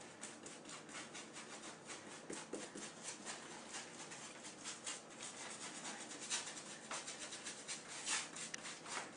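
Paintbrush scrubbing paint onto a rough wooden panel in quick repeated strokes, several a second, the loudest near the end.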